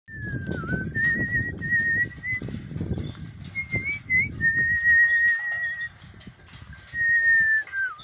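Goat hooves clattering and thumping on a suspension footbridge's slatted deck as a herd walks across, with a person whistling long, slightly wavering notes to drive them on.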